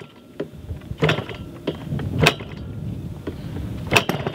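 A 38cc two-stroke gas engine on a large RC airplane being turned over after a shot of fuel in the carburetor, firing in single sharp pops every half second to a second. A low churning sound grows beneath the pops as the engine comes close to starting.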